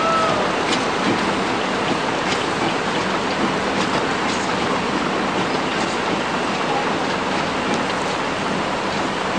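A 1928 Orenstein & Koppel 0-6-0F fireless steam locomotive hauls a loaded sugar-cane train slowly. Steam gives a loud, steady hiss, with scattered clicks from the wagons and a brief squeak at the start.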